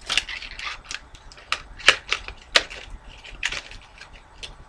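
Hands handling a fidget spinner and its box, making a run of irregular sharp clicks and taps.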